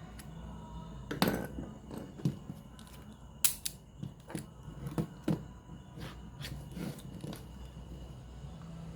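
Irregular sharp clicks and light knocks, about a dozen spread over several seconds, the loudest a little over a second in and about three and a half seconds in, from a radio cassette player being handled and worked on, over a low steady hum.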